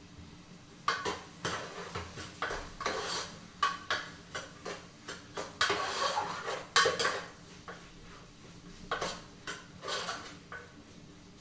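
Metal spoon knocking and scraping against a stainless steel cooking pot while stirring, a run of irregular clinks and clatters that starts about a second in and stops near the end.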